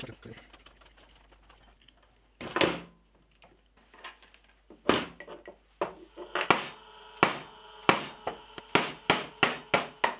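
Hammer tapping a pin punch, metal on metal, to drive the pin out of the sprocket on a jointer/planer's infeed roller shaft: a few single blows, then a steady run of about two to three blows a second in the second half, some with a short metallic ring.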